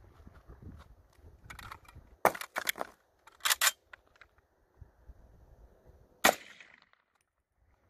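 Empty-gun reload of an M1 Carbine: a run of sharp metallic clicks and clacks about two to four seconds in as a fresh magazine is seated and the bolt runs forward. Then, near the end, a single .30 Carbine shot rings out with a short echo.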